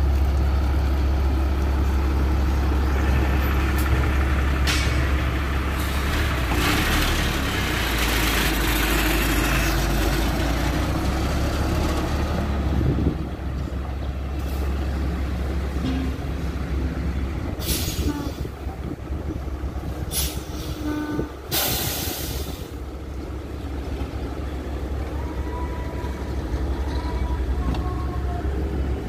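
Sany concrete mixer truck's diesel engine running with a steady deep rumble that eases about halfway through. A long rush of air comes early on, then three short, sharp blasts of compressed air hiss out near the middle, like air-brake releases.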